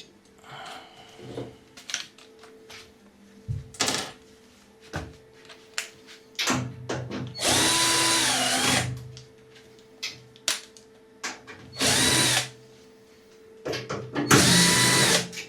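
Cordless drill-driver running in three short bursts, the first about a second and a half long with its motor pitch dipping before it stops, the other two shorter near the end. Light clicks and clatter of tools and parts in between.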